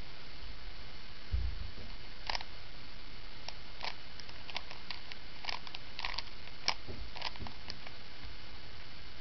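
Plastic Rubik's Cube faces being turned during a solve, making a run of light, irregular clicks, about a dozen over five seconds, over a steady hiss. A dull low bump comes shortly before the clicking.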